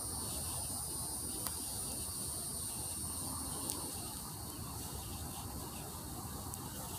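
Insects droning in a steady high pitch, fading out a little past halfway, with a couple of faint sharp clicks.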